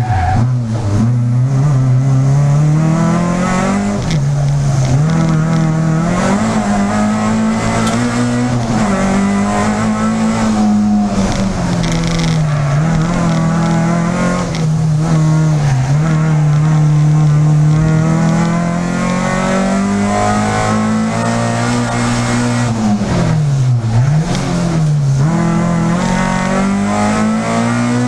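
Peugeot 306 Group A race car's engine heard from inside the car, revving up and down continuously as it is driven hard, with quick drops in pitch at gear changes and braking.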